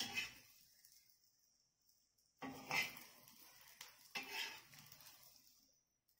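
A metal spatula scrapes and knocks against a hot dosa tawa as an egg kalakki is folded, in three bouts: at the start, about two and a half seconds in, and about four seconds in. Faint oil sizzle runs underneath.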